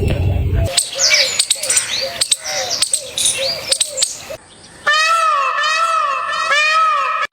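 Birds chirping and calling in quick high notes mixed with clicks. After a short pause a different call takes over: a pitched warbling note that rises and falls about twice a second.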